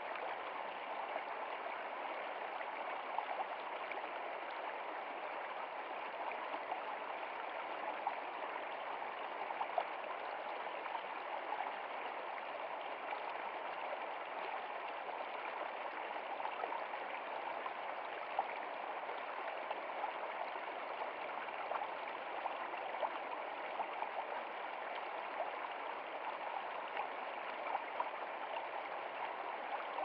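Shallow stream flowing over stones: a steady rush of water with small splashes here and there.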